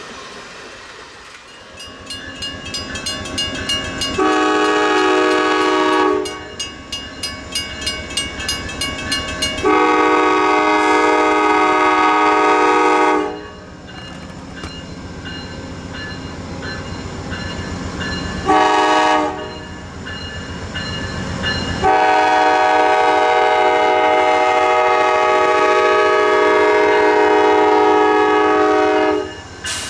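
Amtrak GE Genesis diesel locomotive's air horn blowing a chord in the long-long-short-long pattern of the grade-crossing signal as the train approaches and passes a crossing. The last long blast lasts several seconds. A crossing-signal bell rings steadily, about two strikes a second, during the first blasts, over the rumble of the passing train.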